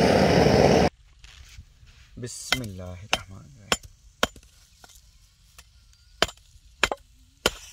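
Gas torch flame hissing steadily against a beef trotter's hoof, cutting off abruptly about a second in. About nine sharp knocks follow, spaced irregularly, as the scorched trotter is knocked on a wooden stump to loosen the charred hoof shell.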